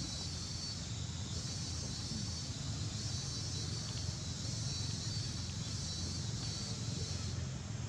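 Steady outdoor background noise: a high, hissing buzz that swells and fades every second or so over a low rumble, with no distinct calls.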